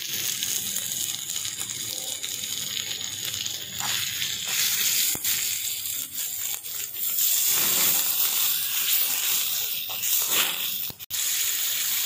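Thick curry sizzling and bubbling in a small iron kadai over a wood fire, a steady hiss broken by a few sharp clicks as a metal spoon stirs and scrapes the pan.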